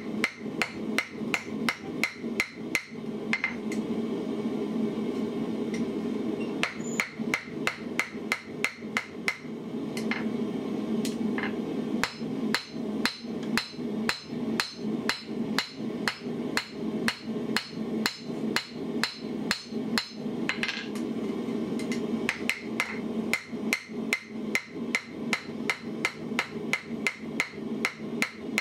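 Blacksmith's hammer striking a red-hot iron ring on the anvil horn, shaping the ring of a bottle opener. It strikes in runs of about two to three blows a second with short pauses, and each blow sets the anvil ringing with a bright metallic ping. A steady hum runs underneath.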